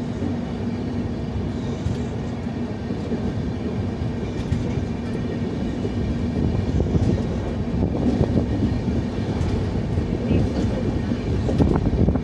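Passenger express train running along the line, heard from on board: a steady rumble of wheels on the track with a faint hum. The wheel clicks get louder and sharper near the end.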